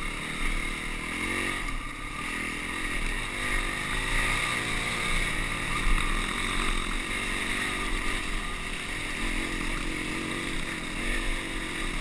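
Honda CRF250X's single-cylinder four-stroke engine running under way on a dirt trail, its revs rising and falling as the rider works the throttle.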